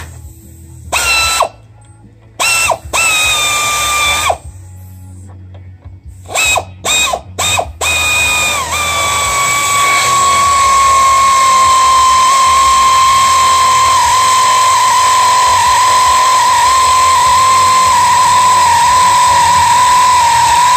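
Power drill run in several short trigger bursts, then held on in one long continuous run, its motor whine sagging slowly in pitch under load.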